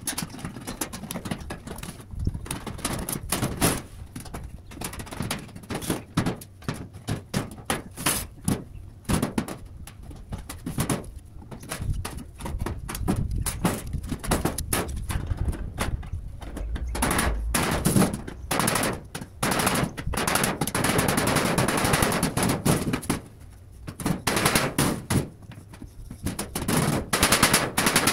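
Hammer blows on a sheet-metal valley gutter, knocking its lip down and tucking it under the edge of the tiles. The strikes come in quick, irregular runs, thickest past the middle.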